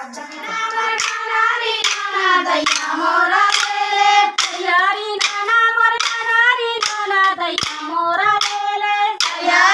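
A group of women singing a Chhattisgarhi sua folk song together, kept in time by a steady beat of hand claps about twice a second.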